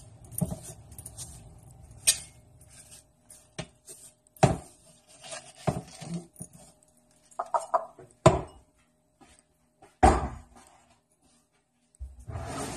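Spoon or utensil clinking and scraping against a ceramic bowl and an enamel roasting pan as the last of a spice mix is scraped out: about a dozen sharp clinks spread unevenly, with short quiet gaps between.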